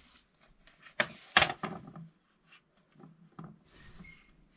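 A small picture frame knocking twice against the wall as it is hung on a screw, about a second in, followed by softer taps and scraping as it is straightened against the wall.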